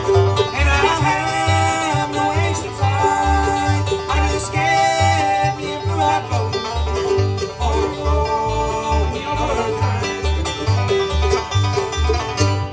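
Bluegrass band playing an instrumental break on acoustic guitar, five-string banjo, mandolin and upright bass, with the bass plucking a steady beat underneath.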